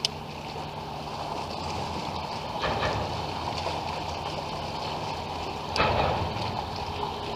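Open-water sound aboard a small jon boat: a steady low hum under wind and water noise, with two short, louder noises, one about two and a half seconds in and one about six seconds in.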